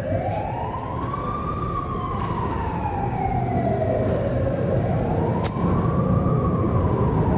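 Emergency vehicle siren wailing, its pitch sweeping slowly up and down about twice, over low steady background noise.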